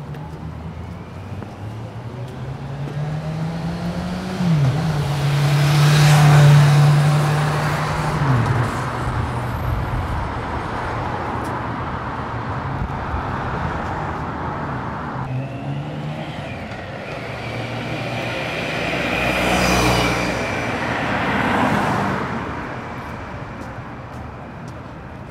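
Road traffic passing: one vehicle's engine hum swells and fades about six seconds in, and another vehicle passes about twenty seconds in.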